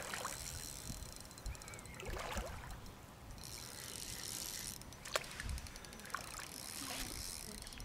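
Fishing reel clicking as a fully-scaled carp is played in, with light water splashing.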